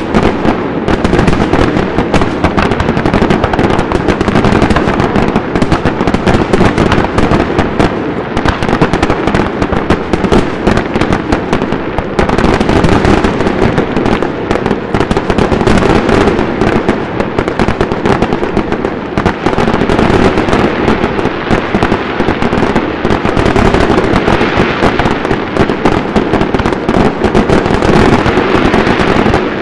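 Finale barrage of a professional fireworks display: aerial shells bursting in rapid, overlapping bangs with no pause between them.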